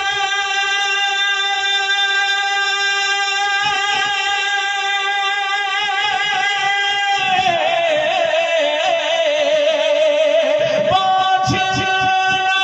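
A wordless sung passage in a naat recitation. One voice holds a long steady note for about seven seconds, then wavers through an ornamented, slightly lower run and settles back on the held note near the end.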